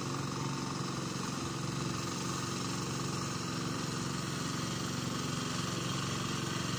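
Yamma 12 hp single-cylinder diesel engine of a turtle-type floating tiller running steadily while the machine works deep, soft paddy mud.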